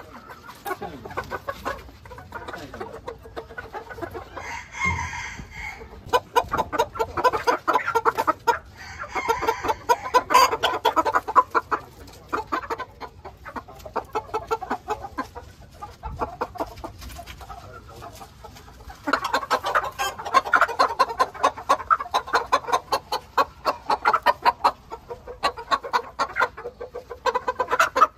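Ko Shamo bantam game chickens clucking in long, rapid runs that swell and fade, with a short rooster crow about five seconds in.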